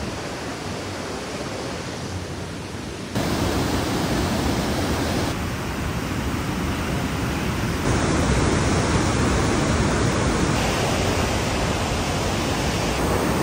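Large waterfall pouring into the river below, a steady rush of falling water. It jumps louder about three seconds in and again a little before the middle.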